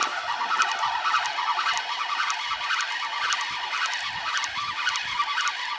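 Spinning reel being cranked steadily, a continuous whirring gear whine, as a fish that has just struck the trolled lure is reeled in.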